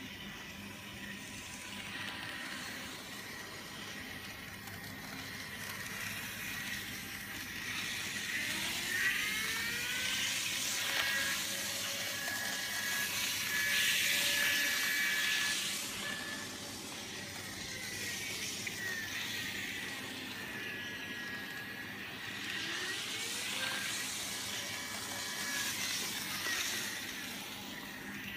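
Kato N scale model locomotive running on the track under a Kato Power Pack Standard S: its small electric motor whines over a hiss of wheels on rail. The whine rises in pitch and later falls twice as the train speeds up and slows, loudest in the middle.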